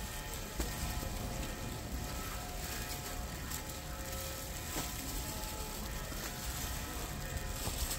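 Steady background noise with a low rumble and a few faint clicks.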